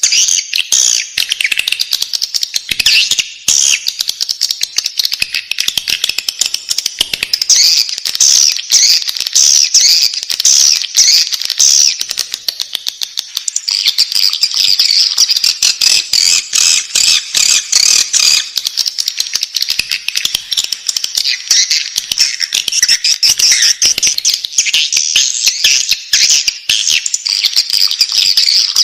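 Swiftlet chicks calling in the nest: a dense, continuous chorus of high, rapid chirps, with many sharp clicks mixed through it.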